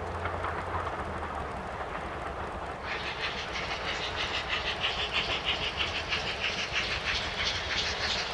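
JNR Class C11 steam tank locomotive working hard, a low rumble at first. About three seconds in, a fast, even rhythm of sharp exhaust beats comes in and keeps going.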